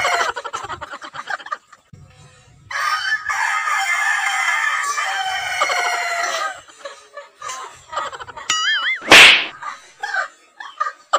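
A rooster crowing twice: one crow just at the start, then a long crow lasting about four seconds. Near the end there is a short wavering call and a sudden loud burst, followed by brief laughter.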